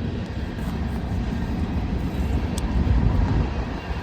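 Rumble of a passing train, a steady low noise that swells a little about three seconds in.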